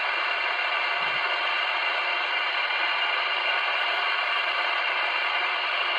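CB radio receiver on an open 27 MHz FM channel giving out a steady hiss of static, with no station coming through.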